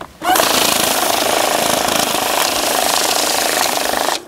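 Electric banknote counting machine running a stack of bills through: a loud, fast rattling whir that starts abruptly just after the beginning and cuts off suddenly near the end.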